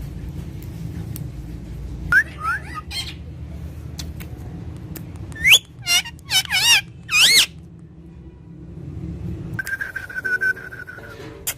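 Pet parrot calling: a few short gliding whistles, then a run of loud, wavering squawk-whistles, and near the end one steady held whistle.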